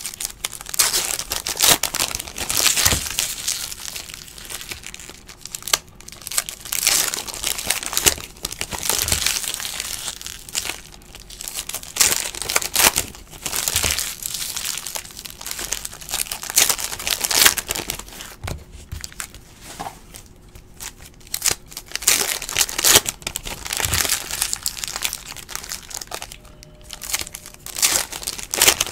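Foil wrappers of 2017-18 Donruss Basketball card packs being torn open and crumpled by hand, in repeated irregular bursts of crinkling.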